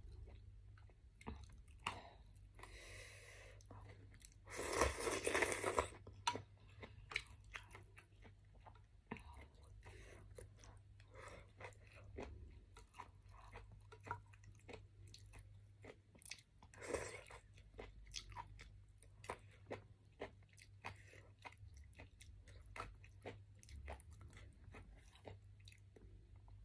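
Close-up eating of river-snail rice noodles: steady chewing and crunching with many small wet mouth clicks. A loud noodle slurp lasting about a second and a half comes about five seconds in, and a shorter one past the middle.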